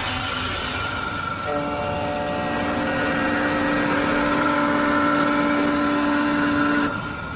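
CNC wood lathe machining a square wooden blank: steady machine noise, with a pitched whine that starts about a second and a half in and cuts off abruptly near the end.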